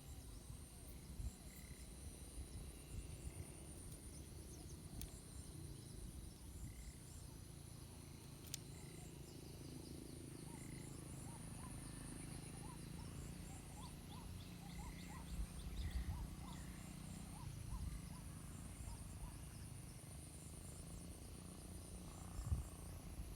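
Wind buffeting the microphone as a low rumble with occasional low thumps, under a steady high pulsing insect drone and faint short chirps from small creatures.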